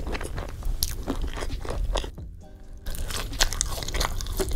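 Close-miked eating of fried fast food: crisp crunching bites and wet chewing, with a short quieter pause a little past halfway.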